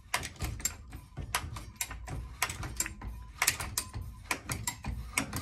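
Hand lever tube bender working a refrigerant line set tube toward a 90-degree bend: a steady run of irregular small clicks and creaks, several a second, from the bender and the tube as the handles are drawn together.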